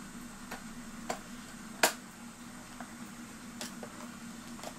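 Light, irregular clicks and taps of small clock parts being handled and pressed into place on a vintage Master Crafters fireplace clock, about five in all, the sharpest about two seconds in, over a low steady hum.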